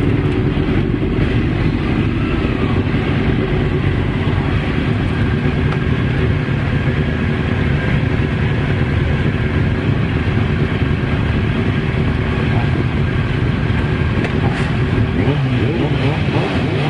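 Race motorcycle engines running on the start line, including the onboard 1996 Suzuki GSX-R 750's inline-four held at raised revs; a steady, loud drone with revs rising near the end.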